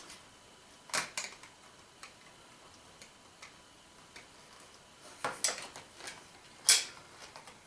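Plastic clicks and knocks of a battery holder loaded with AAA batteries being pushed and worked into the battery compartment of a toy radio-control transmitter. There are a couple of sharp clicks about a second in and a cluster of clicks near the end, the loudest of them, with faint small ticks in between.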